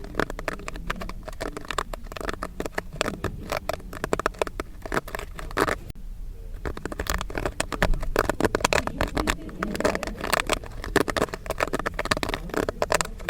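Popcorn kernels popping, a dense run of sharp, irregular pops and crackles, with a brief lull about six seconds in.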